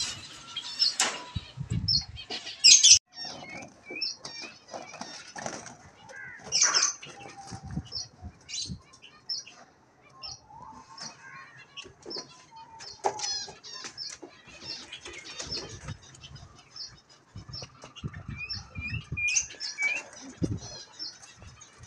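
Budgerigars fluttering and flapping their wings inside a wire cage as they are caught by hand, with the cage wire rattling in short bursts. Short high chirps go on all the way through.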